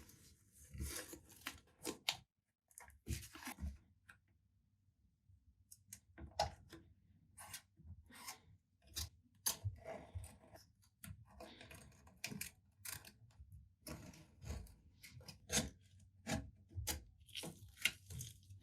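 Irregular short snips, clicks and scrapes of hand work, with a lull of a few seconds about two seconds in.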